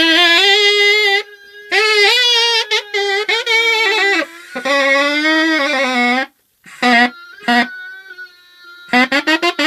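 A wind instrument played loudly in long phrases of bending, wavering notes, then two short blasts, then a fast run of short repeated notes near the end.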